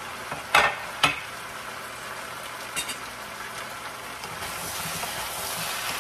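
Beef cubes, potatoes and carrots sizzling in a large frying pan. Two sharp knocks come about half a second apart half a second in, and a lighter one a couple of seconds later. From about four seconds in, a wooden spatula turns the pieces and the sizzle grows louder.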